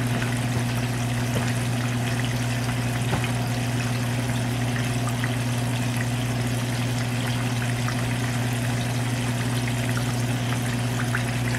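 Chicken thighs frying in hot oil: a steady sizzle with scattered small crackles and pops. A steady low hum runs underneath.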